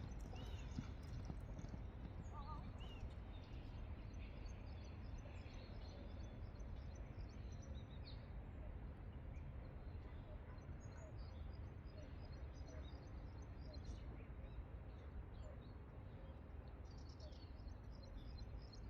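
Steady low outdoor background noise with scattered faint bird chirps.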